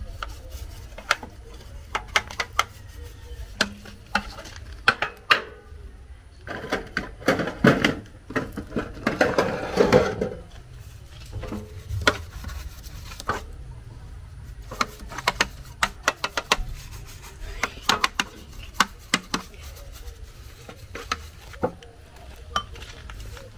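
Sheet-metal baking tins clinking and knocking as they are handled and greased, many short sharp knocks scattered throughout with a rougher rubbing patch near the middle.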